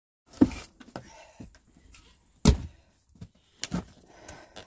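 Pieces of firewood thunking and knocking against each other as they are handled and tossed: three loud thunks, about half a second, two and a half and nearly four seconds in, with smaller knocks between.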